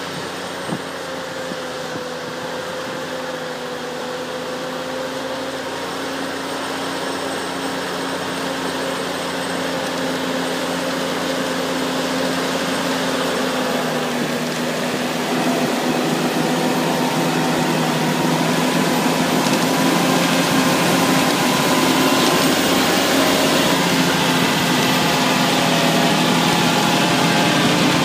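Deutz-Fahr tractor engine running steadily under load, pulling a three-bed potato bed tiller. It grows gradually louder as it draws near, and the noise of the tiller working the soil rises with it.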